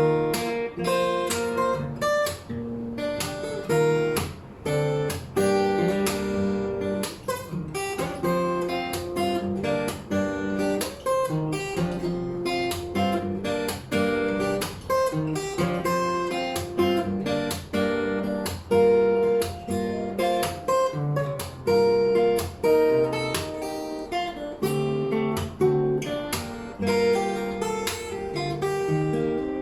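Solo acoustic guitar played fingerstyle: a melody picked over bass notes with occasional strums, continuous and steady in level.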